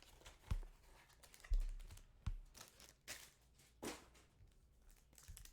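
Trading card boxes and packs being handled on a table: a few soft thumps and light clicks and crinkles.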